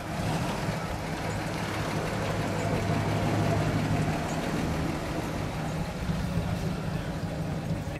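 Old pickup truck's engine running with a steady low hum as the truck drives slowly past at close range.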